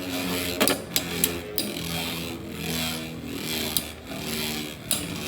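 Two Beyblade X spinning tops whirring in a plastic stadium, their hum shifting in pitch, with several sharp clacks as they strike each other.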